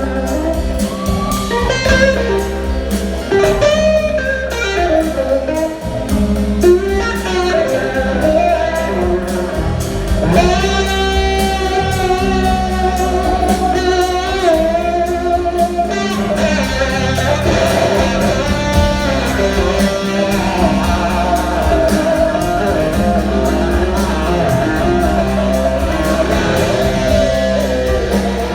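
Live blues-rock band playing, an electric guitar carrying a lead line with bending, gliding notes over bass and drums.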